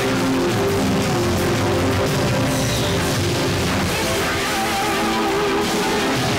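Rock music with electric guitar, played from a music player into a light aircraft's intercom.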